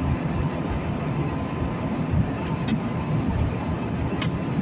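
Airliner cabin noise in flight: a steady low rumble of engines and rushing air, with a faint steady tone and two or three light clicks.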